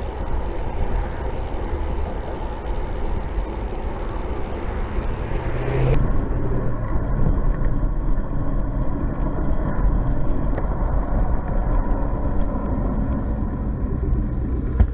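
Car traffic and wind noise heard from a camera mounted on a moving bicycle, a steady rushing noise strongest in the low end. About six seconds in, the noise changes abruptly.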